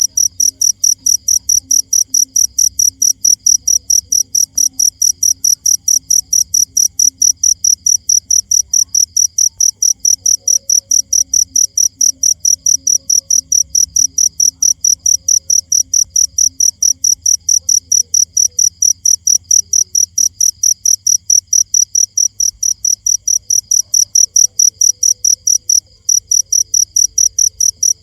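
A cricket chirping loudly and steadily: a short, high chirp repeated about three times a second without a break.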